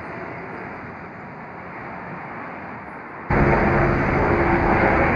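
Road traffic noise from passing cars and buses, a steady hum that jumps abruptly much louder a little over three seconds in.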